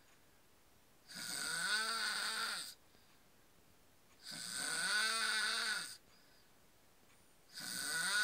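A man snoring in a slow, regular rhythm: three long snores about three seconds apart, each with a buzzing tone that rises and then falls in pitch.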